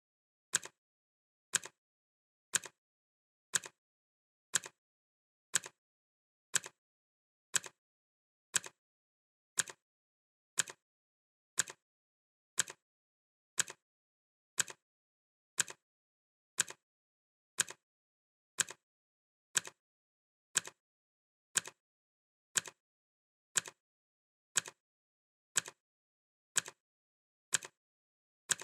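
Clock ticking as a countdown timer sound, one tick a second. Each tick is a sharp click followed closely by a fainter second click.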